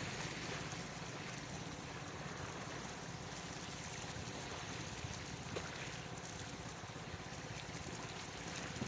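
Steady seaside noise of wind and water, an even rushing wash with no clear events.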